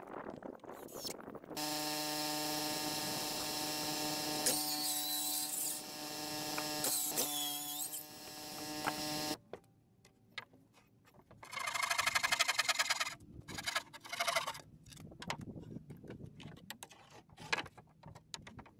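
A steady machine hum with a clear pitch for most of the first half, twice overlaid by short hissing bursts, cutting off sharply. After a short pause, a handsaw cutting a wooden board in rapid back-and-forth strokes.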